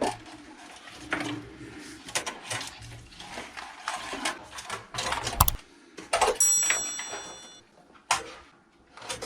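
An opened LCD monitor and its parts being handled and turned over on a workbench: a string of irregular clicks and knocks, the loudest about five and a half seconds in.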